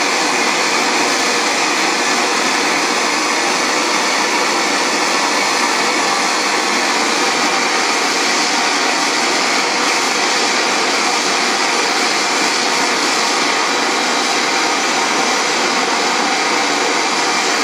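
LPG gas torch flame burning with a steady hiss, held on a boiler joint to heat it for silver soldering.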